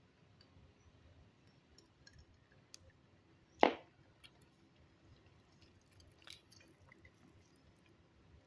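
Close-miked mouth sounds of someone eating omelette: faint, wet chewing clicks, with one short, loud smack about three and a half seconds in.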